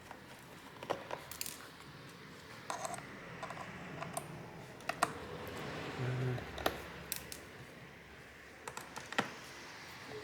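Irregular small metallic clicks and taps of a Torx screwdriver backing tiny screws out of a laptop's bottom cover, with the loose screws set down, and a short low hum about six seconds in.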